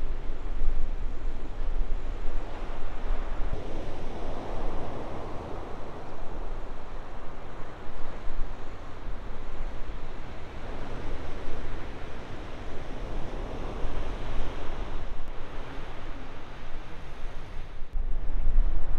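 Ocean surf breaking and washing, the rush swelling and easing several times, over the low rumble of wind buffeting the microphone.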